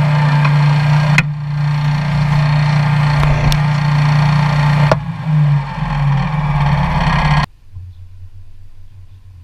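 Pickup truck towing a loaded mower trailer: a steady engine drone with road and wind noise and a few sharp rattles and knocks from the trailer. It cuts off abruptly near the end to a much quieter background.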